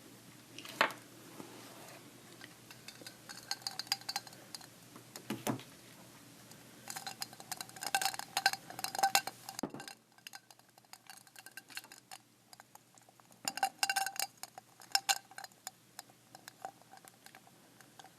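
Ice cubes clinking against a drinking glass, each clink leaving a short ringing tone. The clinks come in two rapid clusters, about seven seconds in and again about thirteen seconds in, with a few single knocks earlier.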